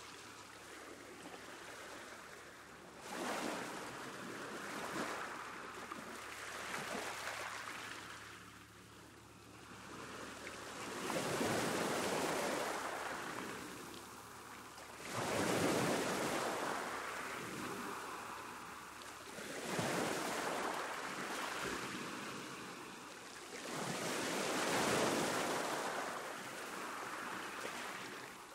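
Ocean waves breaking on a shore, each one swelling into a hiss of surf and then washing back, about every four seconds. One of the surges comes just after the halfway point and another a little past it; these two are the loudest.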